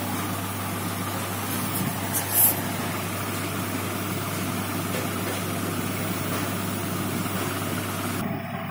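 Steady low mechanical hum with an even hiss over it. A short, louder hiss comes about two and a half seconds in.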